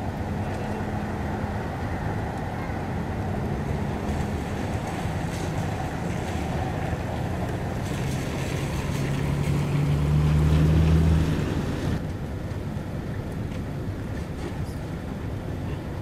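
Engines and exhausts of lowered cars pulling slowly out over wet pavement, with a steady wash of tyre and rain noise. A low exhaust drone grows to its loudest about ten seconds in as one car moves off close by, then drops off sharply a second later.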